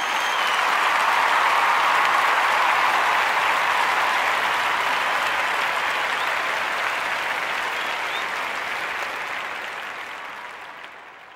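Audience applause, fullest in the first couple of seconds and then slowly fading away.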